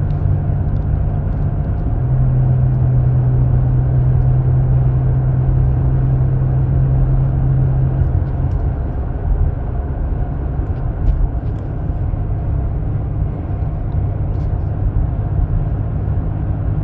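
Chevy Colorado pickup's engine and road noise heard inside the cab while towing a car at highway speed. The engine hum steps up in pitch about two seconds in as the revs rise under load, then drops back about eight seconds in.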